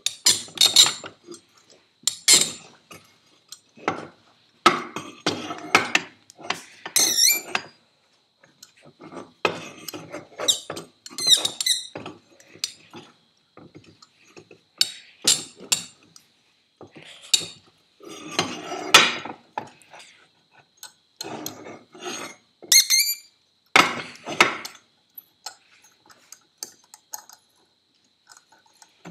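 Irregular bursts of metal scraping, clinking and squeaking as a cast-iron turbo housing and hand tools are handled and shifted on a drill press table.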